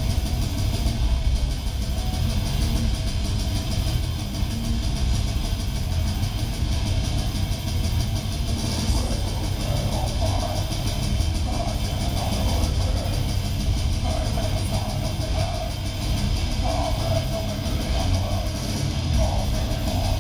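Black metal band playing live, heard from the crowd: distorted guitars and drums as a dense, unbroken wall of sound with heavy low end.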